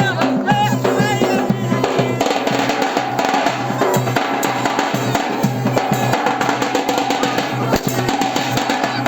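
Live wedding music led by fast, dense drumming, with high wavering notes over it in the first two seconds.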